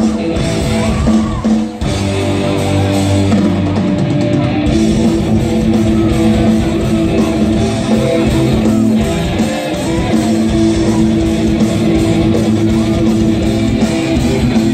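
A rock band playing live through a PA: electric guitars strumming over bass and drums, with a momentary break about two seconds in.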